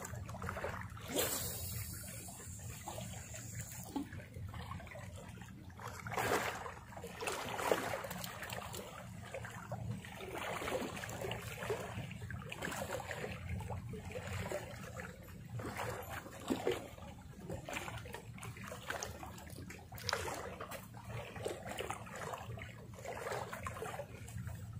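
Shallow sea water lapping and trickling in small irregular splashes, over a low steady rumble.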